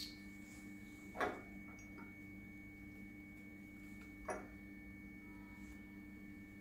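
A steady faint electrical hum made of several held tones. Two brief soft handling sounds, one about a second in and one about four seconds in, come from glassware as drops are added from a reagent bottle to test tubes.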